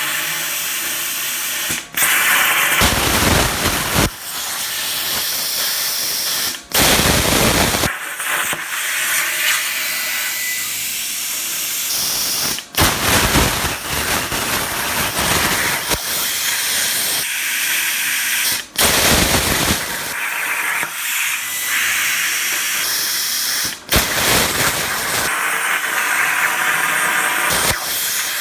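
Razorweld 45 plasma cutter on a CNC table running with a steady hiss. The hiss cuts out for a moment about six times, every few seconds.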